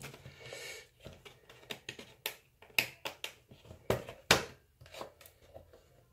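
Scissors snipping through a plastic blister package, a run of sharp, irregular snips with the loudest about four seconds in.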